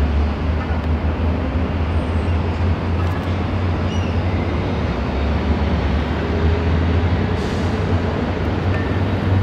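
Steady low rumble with a hiss under it, with a few faint short high chirps about three and four seconds in.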